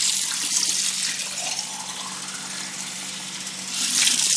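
Water running from a tap and splashing into a sink, swelling louder near the end.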